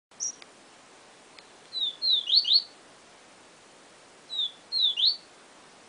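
Papa-capim seedeater singing its 'siu siu' song: a short high note, then two phrases of clear whistled notes that slide down and up, the second phrase shorter than the first. A steady faint hiss runs underneath.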